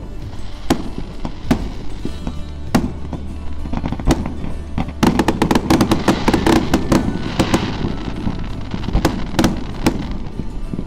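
Aerial fireworks bursting: single bangs every second or so at first, then a dense run of rapid crackling reports about five seconds in, followed by more single bangs.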